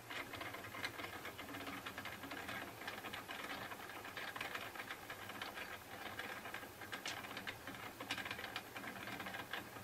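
Small motorized rotating display stand turning under model locomotives. Its drive gives a faint hum and dense, soft, rapid clicking.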